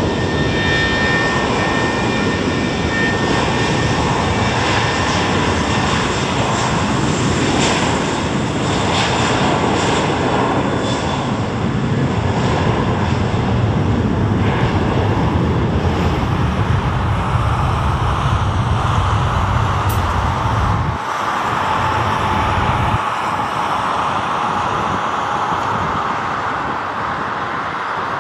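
Airbus A320 airliner's jet engines running at high power through the takeoff roll and liftoff: a loud, steady rush with a thin high whine near the start. The deep rumble thins out about three quarters of the way through.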